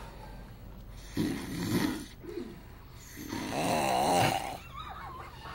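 Snoring in uneven snores: one about a second in, and a longer, louder one with a wavering pitch from about three seconds in, with weaker snorts between.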